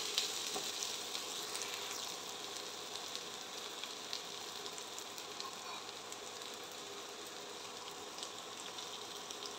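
Diced paneer, capsicum and carrot sizzling in ghee in a wok, a quiet, steady frying crackle with small pops.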